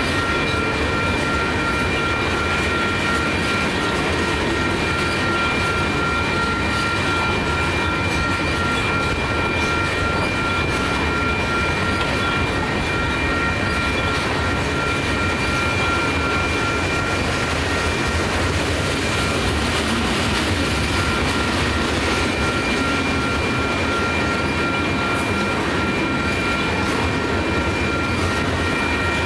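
Loaded freight train of tank cars rolling steadily past over the rails, a continuous rumble and wheel noise, with steady high-pitched ringing tones over it.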